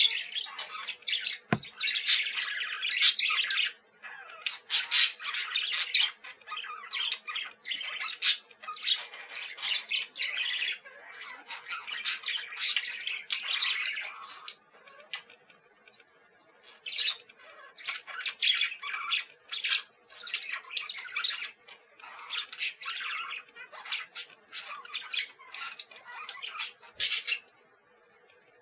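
Budgerigars chirping and chattering, several calls overlapping in quick, irregular runs with short pauses between, over a faint steady hum.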